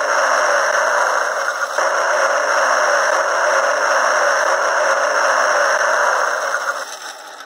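Electronic toy playing a loud, steady, noisy sound effect through its small replacement speaker, with little bass. It tails off about seven seconds in.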